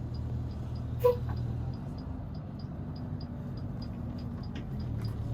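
Inside a moving tour bus: the engine's low, steady hum with a light ticking about three times a second, and a brief squeak about a second in.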